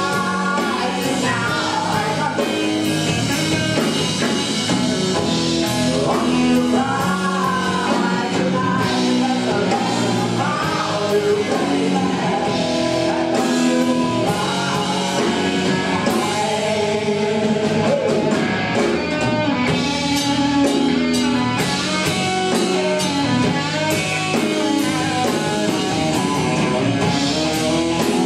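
Rock band playing live: a male singer over electric guitars and a drum kit.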